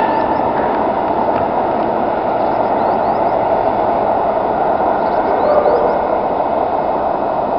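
Steady rolling noise of a train running past the platform, with a few faint, short high squeaks.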